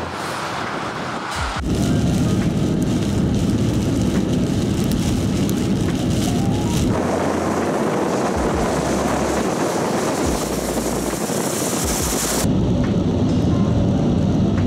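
Large truck driving on a wet road: steady rushing of tyres through water and spray with engine rumble. The sound changes abruptly three times, about 1.5, 7 and 12.5 seconds in.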